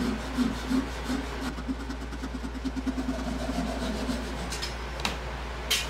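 Small Japanese pull saw cutting through oak by hand, in quick back-and-forth strokes of about four or five a second that stop after three or four seconds. A single sharp clack comes near the end.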